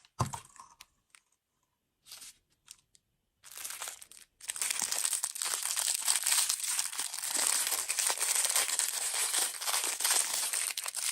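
Plastic candy wrapper crinkling as it is handled and torn open. It starts with a short thump and a few scattered crackles, then becomes dense continuous crinkling from about four seconds in.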